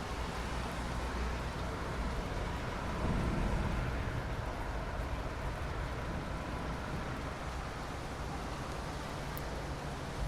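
Steady rain noise with a low rumble underneath, which swells briefly about three seconds in.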